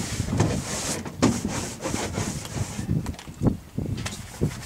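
Irregular rubbing and thumping on the microphone, like wind buffeting and handling noise, uneven in level with no steady tone standing out.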